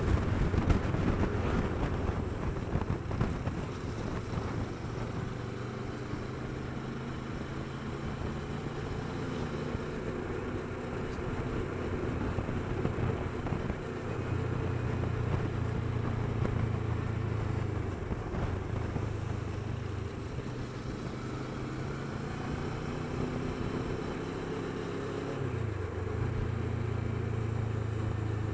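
Kawasaki Versys 650's parallel-twin engine running on the road, its note rising and falling with the throttle, under steady wind noise on the microphone. Wind buffeting is heaviest in the first couple of seconds, the engine pulls louder about halfway through, and near the end its note drops and then climbs again.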